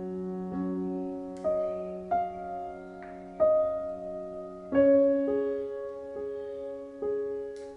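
Slow background piano music, single notes and chords struck about once a second and left to ring.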